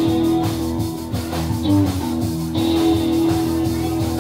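Live band playing an upbeat blues tune: electric guitar over upright bass and drums, with a steady beat and the guitar holding long notes.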